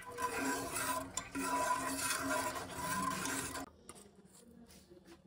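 Kitchen work: a steady hissing rush, as of stirring, frying or running water at a pot, that stops abruptly after about three and a half seconds, leaving a few faint clicks.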